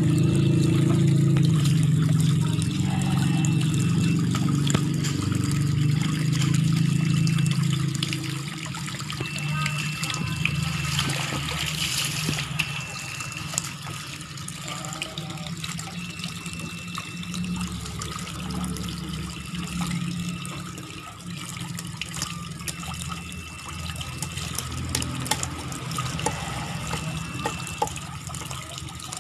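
Water from a tap pouring steadily into a full plastic tub, splashing and trickling. A low drone is also there and is louder for the first eight seconds or so.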